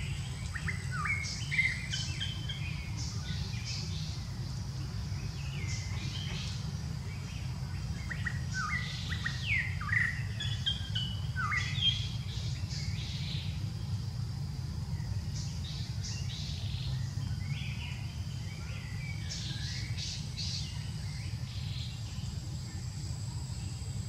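Birds chirping and calling in several short bursts of quick, sweeping notes. Beneath them are a steady low rumble and a faint, steady high tone.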